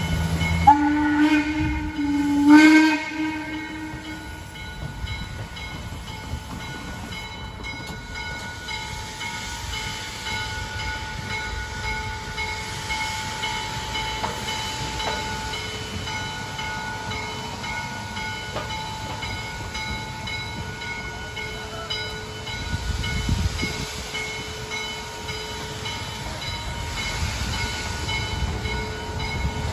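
Baldwin-built steam locomotive No. 1309's whistle sounding two blasts right at the start. After that, a grade-crossing signal bell rings steadily, and a low rumble builds near the end.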